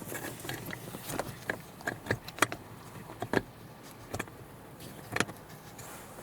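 Plastic electrical connectors being handled and snapped together while a dash cam's T-splitter wiring harness is plugged in: small rattles with a few sharp clicks, the loudest about two and a half, three and a half and five seconds in.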